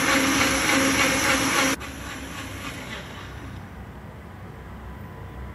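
Electric mixer grinder (mixie) running at speed, blending ground paan leaves with milk into a shake. The motor cuts off abruptly a little under two seconds in, leaving a fainter noise that fades away.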